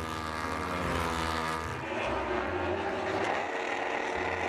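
Engine sound of a racing motorbike, running steadily with a shift in pitch about two seconds in.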